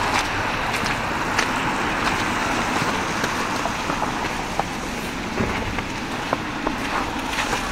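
Snowy street ambience: a steady hiss of distant traffic, with scattered light clicks and taps.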